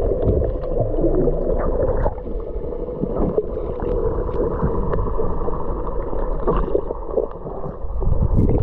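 Muffled underwater rumble and gurgling of churned river water heard through a submerged action camera, with scattered faint knocks and clicks. The sound sets in abruptly as the camera goes under and is dull, with almost no treble.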